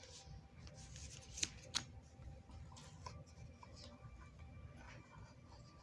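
Faint handling noise: soft rubbing with two small sharp clicks close together about one and a half seconds in.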